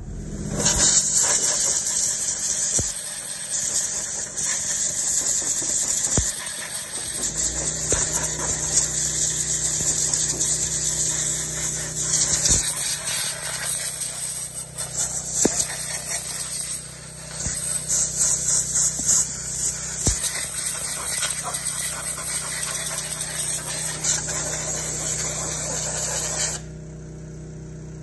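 Handheld blower running, a loud steady rush of air with a motor hum beneath, blowing grass debris out of a zero-turn mower's undercarriage around the ignition switch and circuit board. It dips briefly about two-thirds of the way through and shuts off near the end.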